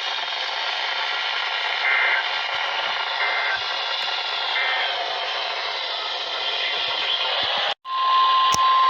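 Weather radio receiver hissing with static, with three faint short warbling data bursts about a second and a half apart: the digital end-of-message code that closes a weather radio alert. Near the end the audio drops out for a moment, and a steady 1050 Hz warning alarm tone begins.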